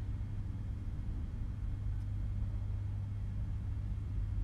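A steady low hum with no distinct clicks or taps.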